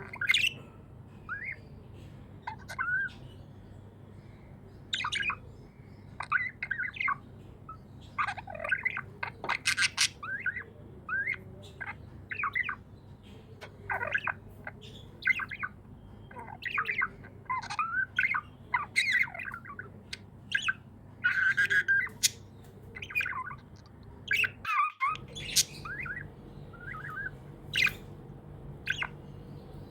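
Pet budgerigars chirping and squawking in quick, irregular bursts, over a steady low hum.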